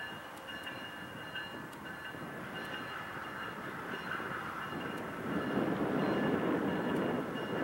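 Amtrak passenger train approaching from a distance: a steady rumble that grows clearly louder about five seconds in.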